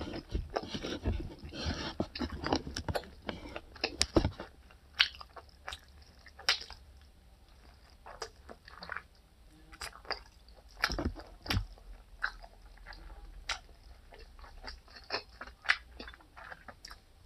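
A person eating seafood boil with her fingers close to the microphone: irregular chewing, biting and crunching with small wet clicks, and a few heavier knocks about four seconds in and twice around eleven seconds.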